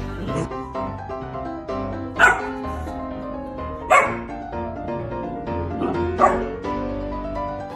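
A golden retriever puppy gives about four sharp barks or yips, a second or two apart, over steady background music.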